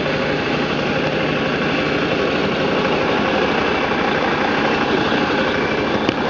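BMW G650GS single-cylinder motorcycle engine running steadily at low speed.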